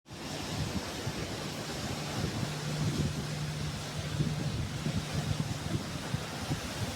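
Sea waves washing against the shore, with wind buffeting the microphone in gusts. A low steady hum sits under it through the first half.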